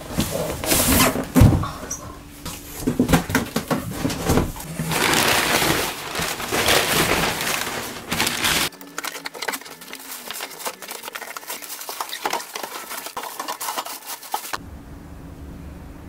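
Clinks and clatter of dishes and cutlery in a small room. About nine seconds in, the sound cuts to thinner, quick ticking, and near the end it settles to quiet room tone.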